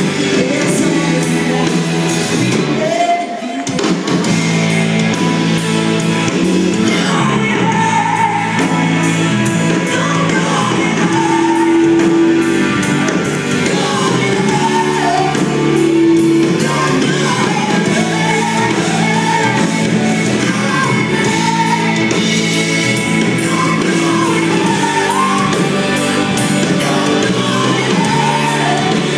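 Live rock band playing loud, with a woman singing lead over drums, electric guitars, bass and keyboards. The bass and drums drop out for a moment about three seconds in.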